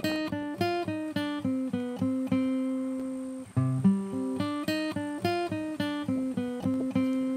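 Background music: a plucked acoustic guitar picking a light melody in single ringing notes, about three to four a second, with a held note before the phrase starts over about three and a half seconds in.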